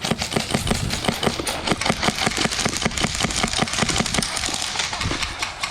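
A player running: quick, irregular footfalls and rattling gear, several a second.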